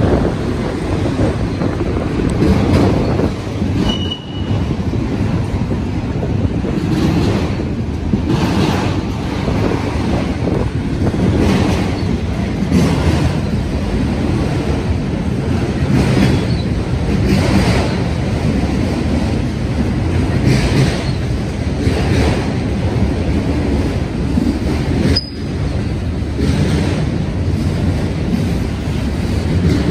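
Freight train cars rolling past: a steady rumble of steel wheels on rail with a clack every second or two as wheels cross rail joints, and a brief high wheel squeal about four seconds in.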